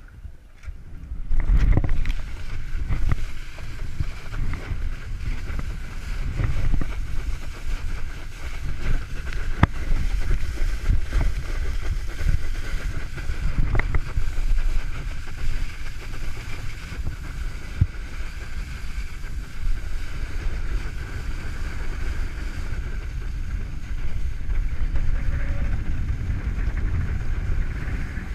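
Wind buffeting the microphone and water rushing under a wakeboard as it is towed across a lake by a cable-ski tow. The noise jumps up about a second and a half in, then stays steady and rumbling.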